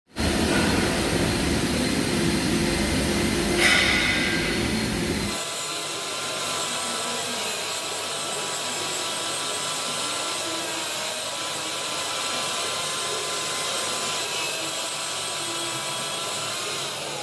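Steady machine noise, like a power tool or workshop equipment running. A heavy low rumble stops suddenly about five seconds in, leaving an even hiss with faint steady hums.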